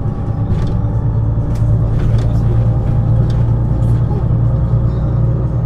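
MAN NG 313 articulated bus's six-cylinder diesel engine running steadily under way, a deep, even drone that grows a little louder about a second in. Faint clicks and rattles sound now and then above it.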